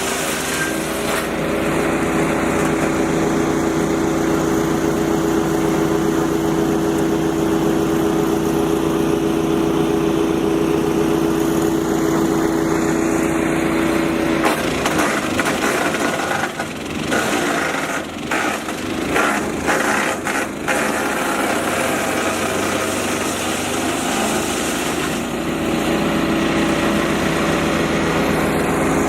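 Rock Machinery RX-13 wood chipper with its 13.5 hp Briggs & Stratton XR2100 petrol engine running at a steady speed. About halfway through, wood is being fed in: the steady note breaks up into irregular cracking and clattering for about ten seconds as the drum chips it. Near the end it settles back to a steady run.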